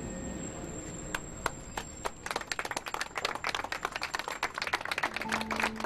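Crowd applauding, the clapping starting about two seconds in and growing dense and irregular. Music comes in near the end.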